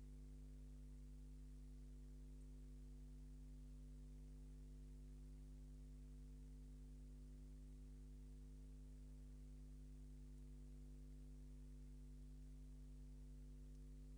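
Steady low electrical hum, a constant drone with several fixed overtones and no other sound, as on the soundtrack of silent film footage.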